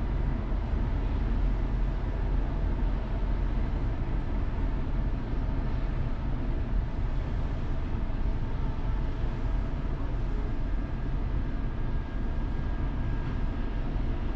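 Steady low rumble with hiss, unbroken throughout: the machinery and harbour noise heard from a docked cruise ship's open cabin balcony.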